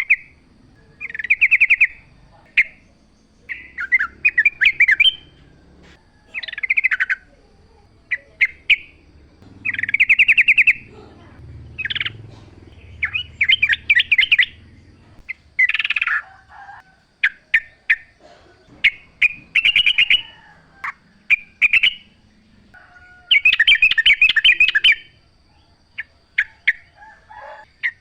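Yellow-vented bulbul singing: loud, bubbly phrases of rapid chattering notes, each lasting about half a second to a second and a half and repeated every second or two, with a longer run of song near the end.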